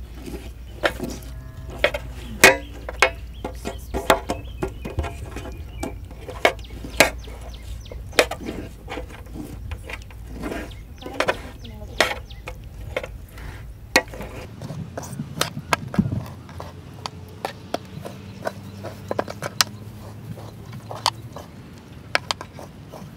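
Irregular sharp knocks and taps, one or two a second, over a steady low hum that stops about two-thirds of the way in.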